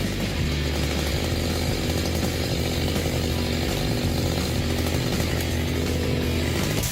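A chainsaw engine running steadily at high revs, cutting through wood.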